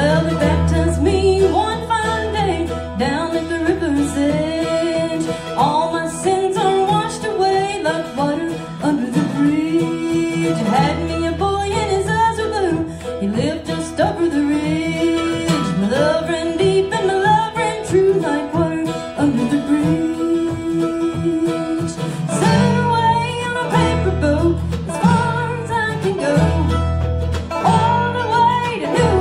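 Live acoustic bluegrass band playing: a woman sings lead over strummed acoustic guitar, banjo rolls and upright bass.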